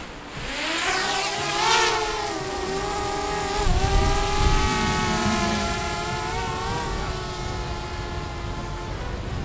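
Small quadcopter drone's propellers spinning up for takeoff: a whine that climbs steeply in pitch over the first two seconds, then holds with small wavers as the drone lifts off and climbs. A low rumble joins about three and a half seconds in.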